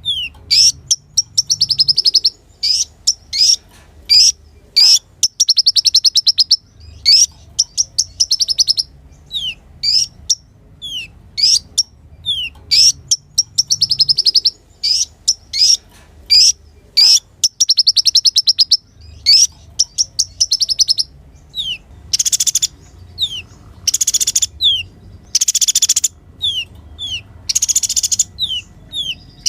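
Kolibri ninja sunbird singing: a rapid run of sharp high chirps, quick downward-sweeping notes and fast trills, turning to harsher buzzy notes in the last several seconds.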